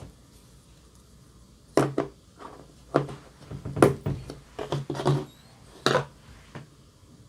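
Hands pressing and poking glossy slime, giving a string of sharp wet pops and clicks, about ten of them bunched between two and six and a half seconds in.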